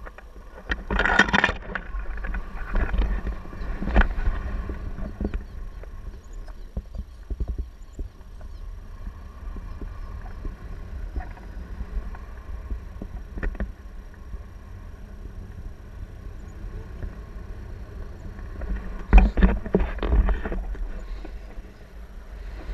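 Wind buffeting a pole-mounted camera's microphone in paraglider flight: a steady low rumble, with louder gusts about a second in and again near the end.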